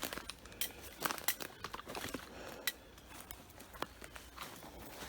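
Footsteps crunching over rough woodland ground, an irregular run of clicks and crackles that is busiest in the first half.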